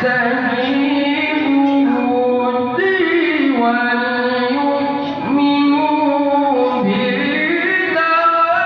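A male qari reciting the Quran in the melodic, sung tilawah style into a microphone, amplified through a loudspeaker: long held notes that slide and ornament between pitches, with a brief breath break about five seconds in.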